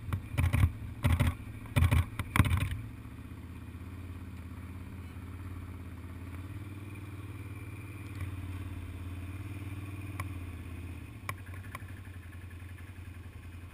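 Quad bike engine running at low, steady speed, rising slightly in pitch for a few seconds near the middle before settling again. Over the first two and a half seconds there is a run of loud knocks and rattles.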